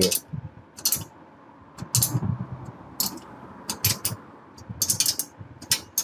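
Ratchet wrench clicking in short bursts about a second apart as the exhaust pipe's front flange nuts are tightened down.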